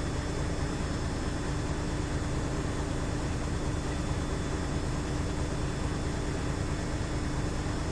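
DAF XF 105's six-cylinder diesel engine idling steadily with the truck at a standstill, with an even hum throughout.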